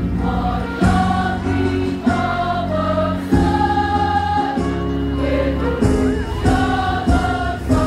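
Women's choir singing together in held, changing notes, with a steady low accompaniment underneath.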